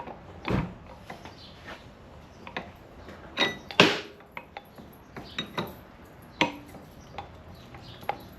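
Irregular metal clinks and knocks as the steel rear axle of a 2001 Harley-Davidson Dyna Super Glide is fed through the swingarm, spacer and wheel hub, some of them ringing briefly. The loudest knock comes a little before halfway.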